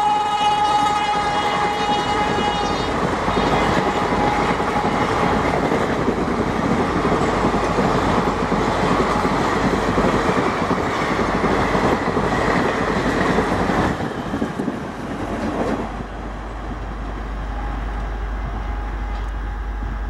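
Indian Railways WAP-7 electric locomotive's horn sounding one long note that trails off in the first three seconds, then the coaches of a superfast express clattering past over the rail joints. The clatter drops away between about 14 and 16 seconds in, leaving a low steady rumble.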